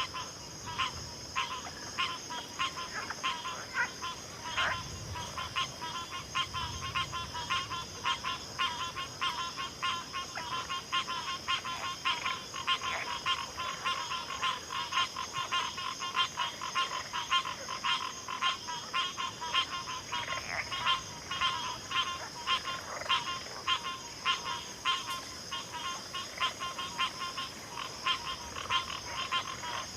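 A dense frog chorus: many short calls overlapping several times a second without pause, over a steady high-pitched insect drone.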